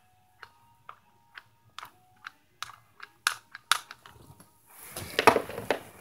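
Handling noise on a phone's microphone: a string of light taps and crackles about twice a second that grow louder, then a louder scuffing rustle about five seconds in as the phone rubs against a cotton sweatshirt.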